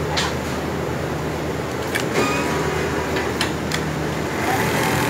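Steady hum of industrial computerized pattern sewing machines, with a few sharp clicks as a sewing template is handled and clamped. About four seconds in the large-format machine starts stitching and the sound gets louder.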